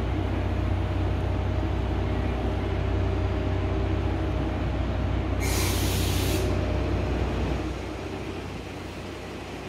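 EF81 electric locomotive moving off slowly with a steady low hum. About five and a half seconds in comes a burst of compressed-air hiss lasting about a second. Near the end the hum drops away and the sound gets quieter.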